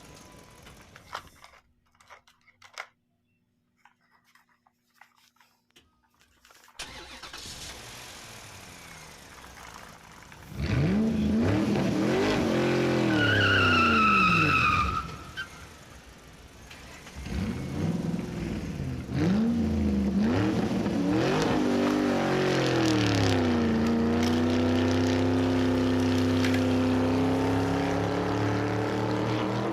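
A vehicle engine revving up and down several times, with a brief high squeal about halfway through, then holding a steady, slowly rising pitch. The first several seconds are near silent.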